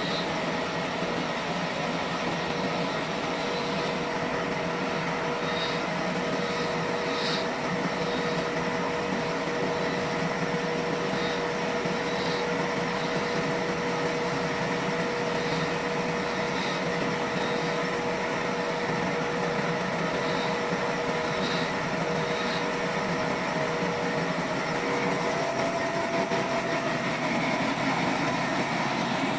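Sawmill trolley saw running steadily, a constant machine noise with a steady hum and faint short ticks now and then.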